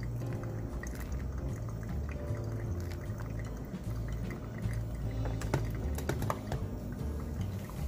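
Hot water poured in a thin stream from a kettle onto coffee grounds in a paper-filtered dripper, hand-drip brewing. The pour stops partway through and the coffee keeps dripping into the glass server below. A few light clicks come about three-quarters of the way in.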